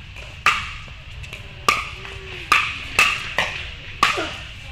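Pickleball rally: sharp pops of the hard plastic ball struck by paddles, about six of them, coming faster toward the end, each with a short ring in the court hall.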